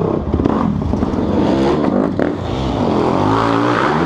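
A motor vehicle engine running and revving, its pitch rising and falling.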